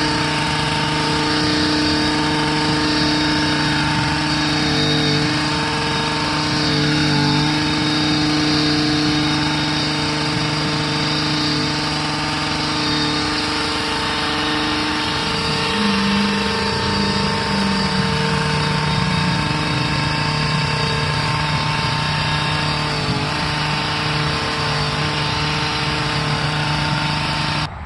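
Small gas-powered garden tiller running steadily as it churns garden soil and compost into a clay bed. Its engine pitch rises for a few seconds a little past halfway, then settles back.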